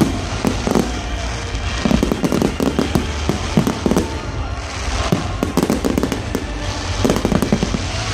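Fireworks display: many overlapping bangs and crackles from bursting aerial shells, following one another rapidly without a break.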